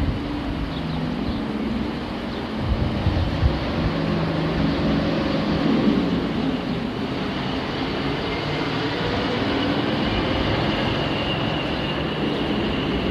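British Rail Class 45 'Peak' diesel locomotive, with its Sulzer twelve-cylinder engine, running steadily as it approaches hauling passenger coaches, growing a little louder as it nears.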